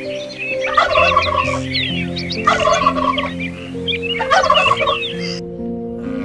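A farm fowl's rapid warbling calls, three times about a second and a half apart, with small birds chirping high above, over soft, steady background music.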